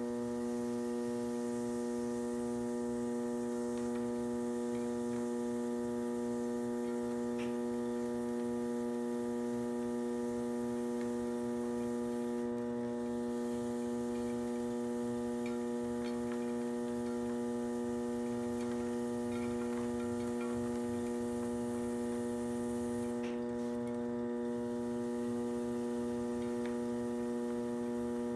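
Electric potter's wheel running at a steady speed, its motor giving a constant hum, with faint scraping of a metal trimming tool cutting the clay as it turns.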